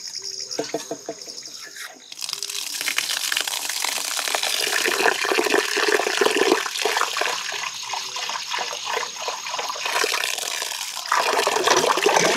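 Outdoor tap water running into a stainless-steel strainer of rice set in a steel bowl while the rice is rubbed and swished by hand for washing; the water comes on about two seconds in. Near the end the strainer is lifted and the water pours off the rice.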